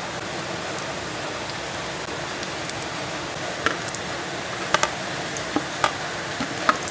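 Steady hiss of heavy rain, with a handful of short sharp clicks in the second half as cubes of paneer are dropped into the pan of spinach gravy.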